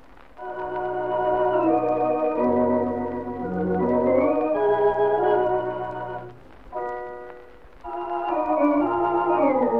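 Theatre pipe organ playing sustained chords over held bass notes, with a melody that glides between pitches. The music dips briefly a little past the middle before the next phrase swells in.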